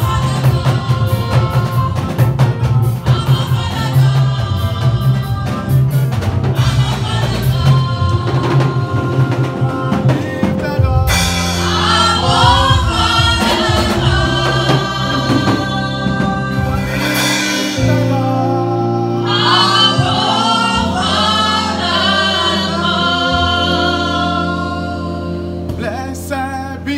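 Gospel praise music with a drum beat and a steady bass line. Singing comes in about eleven seconds in and continues over the band.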